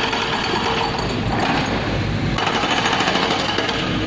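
Hydraulic breaker hammer on an excavator pounding asphalt in rapid blows, stopping about a second and a half in and starting again about a second later, over the machine's engine running.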